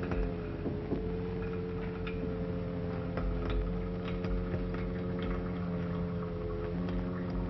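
Steady electrical hum of laboratory apparatus, several low tones held together, with scattered faint ticks and clicks over an old optical soundtrack.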